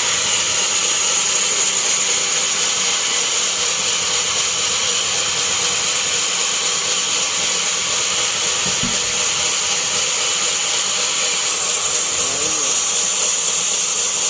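Sawmill bandsaw running with a loud, steady high-pitched hiss.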